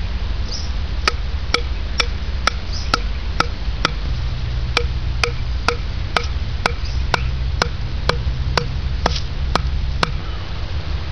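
Wooden stake knocked into the ground with a block of wood: a steady run of about twenty sharp wooden knocks, roughly two a second, each with a brief pitched ring. The knocks pause briefly about four seconds in and stop about ten seconds in.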